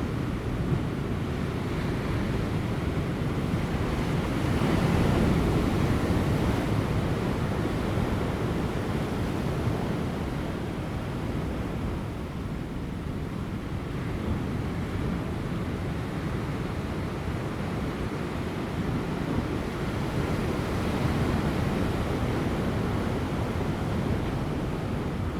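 Large ocean waves breaking on offshore rocks: a continuous low wash of surf that swells louder about five seconds in and again near the end, with light wind.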